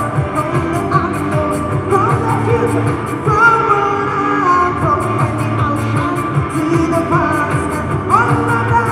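A woman singing live into a microphone, holding long notes, over a steady beat with a full low end.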